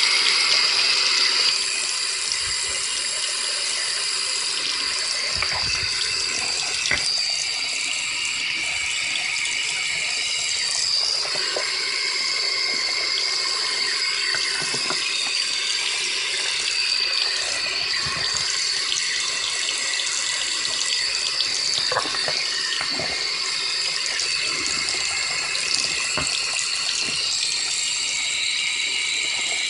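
Tap water running steadily into a sink and splashing onto a phone sealed in a clear plastic waterproof pouch, with a few light knocks as the pouch is handled.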